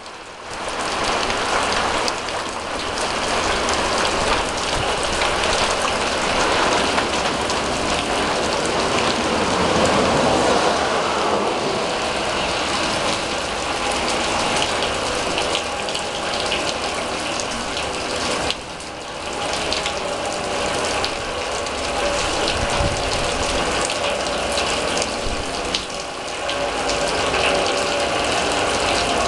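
Heavy rain falling on a steel drum, a dense, steady patter of drops on metal, dipping briefly about two-thirds of the way in.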